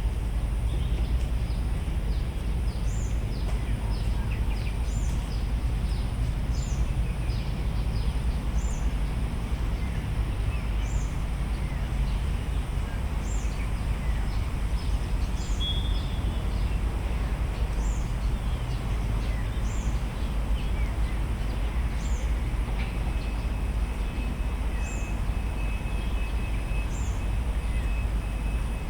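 Outdoor park ambience: birds chirping, with one high, short falling call repeating about once a second, over a steady low rumble. A thin, steady high whistling tone joins in near the end.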